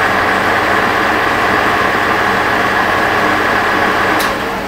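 1943 Sidney 16x54 engine lathe running at a high spindle speed, its headstock gearing making a loud, steady mechanical noise over a steady motor hum. Near the end there is a click and the gear noise falls away, leaving the lower hum.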